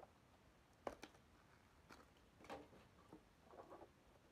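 Faint handling sounds of clear plastic packaging: a few sharp clicks about a second apart, then some light crinkling near the end.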